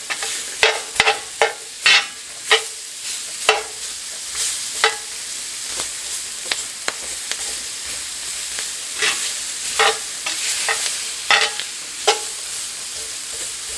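Onions sizzling in butter and flour in a cast iron skillet, with a utensil scraping and knocking against the pan in repeated stirring strokes that ease off in the middle and pick up again near the end.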